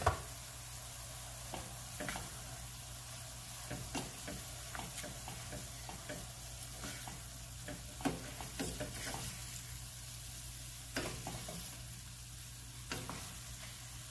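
Ground turkey and pork sausage sizzling steadily in a stainless steel skillet, with a wooden spoon stirring and scraping the pan now and then.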